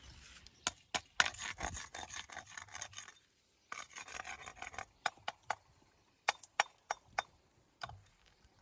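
Hand tool scraping and rasping against stone in two spells, then a run of about a dozen sharp taps and knocks on stone: masonry work on a stone wall.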